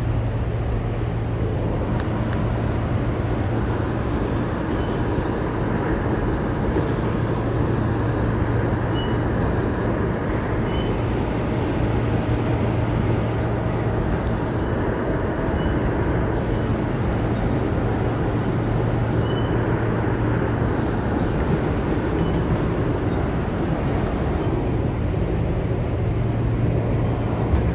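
Interior of an R160A subway car running along the line: steady rumble of the wheels on the rails, with a low hum that fades in and out.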